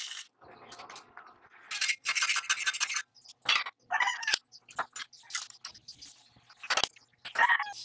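Metal clinks and scrapes from steel rods and a cast iron bench vise being handled and tightened. The sounds come in short irregular bursts, with a longer rasping stretch about two seconds in.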